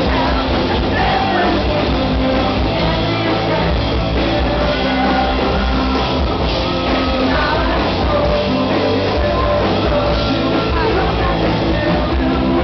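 Live rock band playing loud with a singer, heard from the audience, steady throughout.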